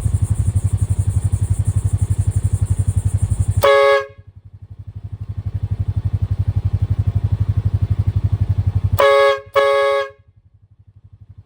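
Aftermarket train horn on a Honda Pioneer 500 side-by-side sounding one short blast about four seconds in, then two quick blasts about nine seconds in, a loud chord of several tones. Under it the side-by-side's single-cylinder engine runs with a steady pulse.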